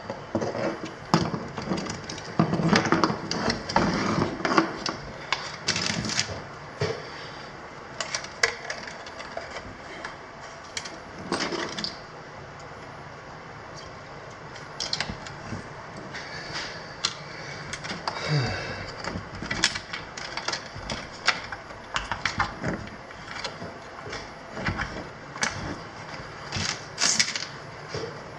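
Irregular small clicks, taps and rustling from hands working a motorcycle's wiring harness, routing the wires and bundling them with zip ties. The clicking thins out for a few seconds in the middle.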